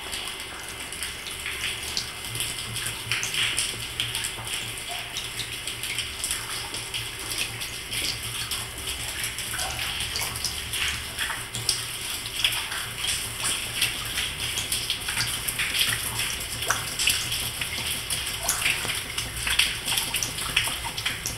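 Running water with irregular drips and splashes, over a low steady hum.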